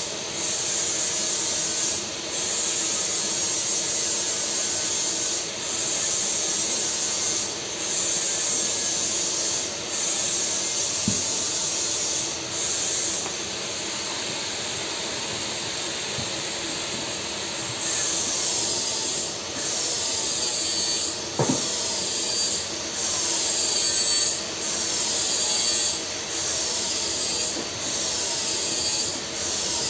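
TIG welding arc on steel pipe with argon shielding gas: a steady, high-pitched hiss that drops out briefly every couple of seconds as the arc stops and restarts. In the second half, short falling tones repeat about once a second over the hiss.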